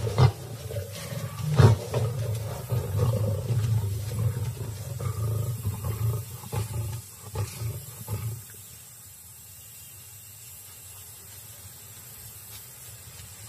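Lions snarling and roaring in a fight, as the pride attacks an intruding young male. The snarls are loudest in the first two seconds and die away about eight seconds in, leaving a quiet low background.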